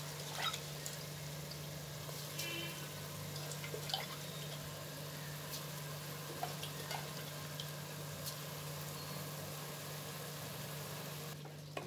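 Soaked basmati rice and its water dripping and sliding from a steel bowl into a pressure cooker of tomato masala, with scattered small clicks of grains and hands against the pot. A steady low hum runs underneath.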